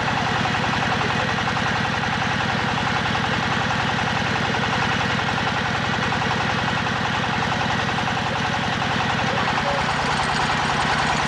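Engine of a small hydraulic drilling rig running steadily with a fast, even beat. Its low note shifts slightly about nine and a half seconds in.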